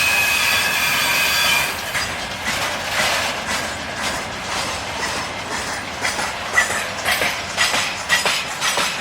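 Freight train wagons rolling past, wheels clacking and knocking over the rail joints. A steady high squeal from the wheels in the first second and a half, then irregular knocks that come thicker near the end.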